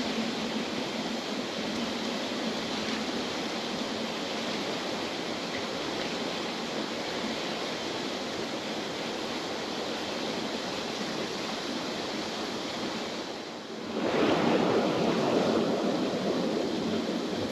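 Mountain river rushing, a steady roar of flowing water. About fourteen seconds in it dips briefly, then comes back louder and fuller.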